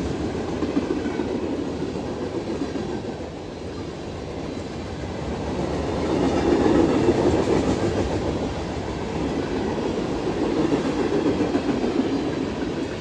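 CSX freight train rolling past close by, its cars and wheels on the rails making a loud, steady rumble that swells and eases as the cars go by.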